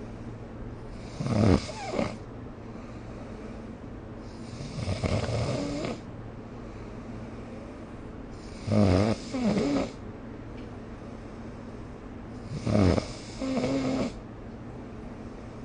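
A sleeping person snoring: four snores about four seconds apart, each a loud rasp followed closely by a shorter second one.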